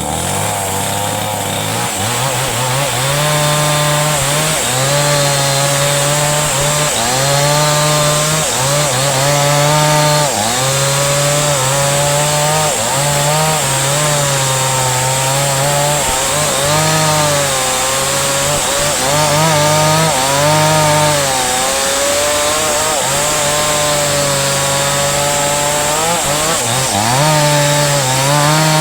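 Chainsaw running at high revs while cutting into a dense hardwood trunk. Its pitch sags and recovers every second or two as the chain bites into the wood and bogs under load.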